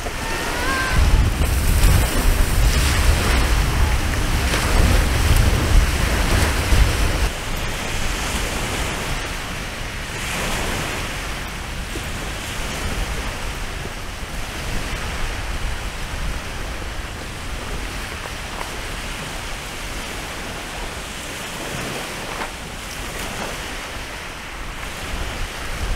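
Wind buffeting the microphone as a low rumble for the first several seconds, over the steady wash of waves breaking on a lake shore.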